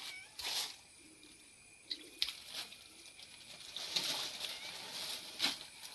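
Milk squirting in short jets into a steel pot as a cow is milked by hand: a few spurts at first, then a quicker run of them from about four seconds in.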